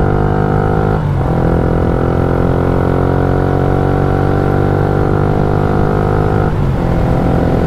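Yamaha Y15ZR's single-cylinder four-stroke engine running steadily under way, just rebuilt and on its first ride with no odd noises. The engine note breaks briefly and settles lower about a second in and again near the end.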